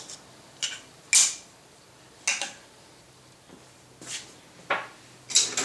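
A series of short knocks and scrapes of wood being handled on a workbench as a wooden block and the oak vise jaw are shifted into place, about six in all, the loudest about one and two seconds in.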